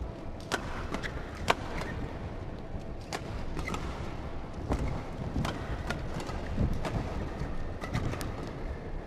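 Badminton doubles rally: sharp cracks of rackets striking the shuttlecock every second or so, the loudest about a second and a half in, over a low steady arena crowd murmur.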